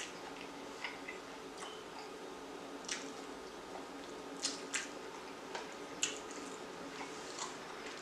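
Close-miked eating sounds of cheese-sauce-covered Korean fried chicken being pulled apart and chewed: scattered wet smacks and sharp clicks, a second or so apart, over a low steady hum.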